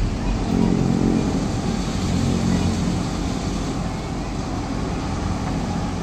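Heavy truck engines running hard under load while towing, a low steady hum that is strongest in the first few seconds and then eases a little.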